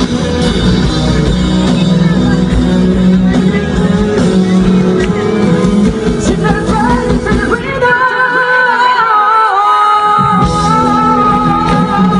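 Live pop-rock band playing, with a sung vocal line over guitars, bass and drums. About eight seconds in, the bass and drums drop out for about two seconds, leaving the voice over held chords, then the full band comes back in.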